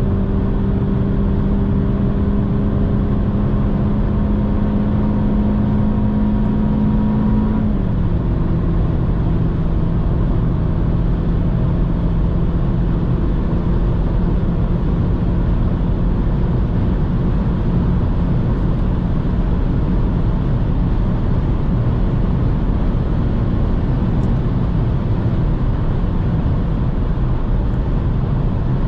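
Cabin sound of a BMW 118i's 2.0-litre four-cylinder petrol engine under full throttle at about 185 km/h. The engine note climbs slowly, then drops about eight seconds in as the automatic gearbox shifts up, and then holds steady under heavy wind and tyre noise.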